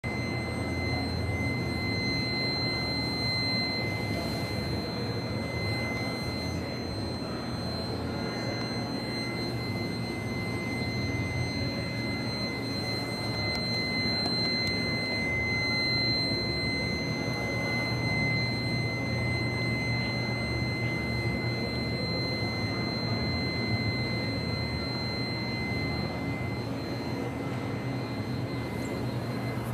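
Steady background roar of a large indoor exhibition hall, with a constant high-pitched whine over it.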